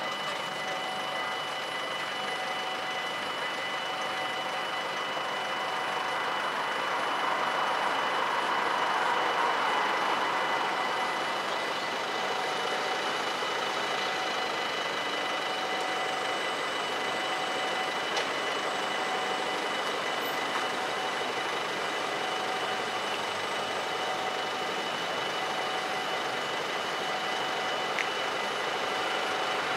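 Mechanical bells of a Dutch automatic half-barrier level crossing ringing steadily while the barriers are down, warning of an approaching train. A swell of passing road-vehicle noise rises and fades around eight to ten seconds in, and the sound grows louder near the end as the train nears.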